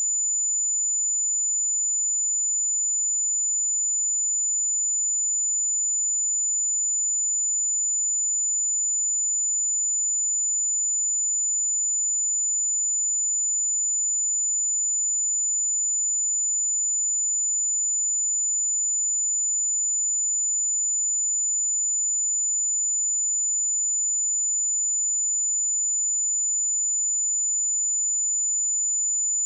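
A steady, continuous 7004 Hz sine-wave test tone: a single high-pitched pure tone held at constant level.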